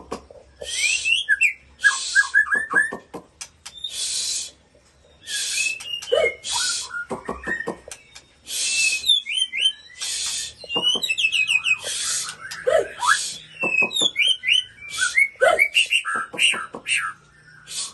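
White-rumped shama singing: a loud, varied song of quick whistled slides and trills, broken every second or two by harsh rasping notes.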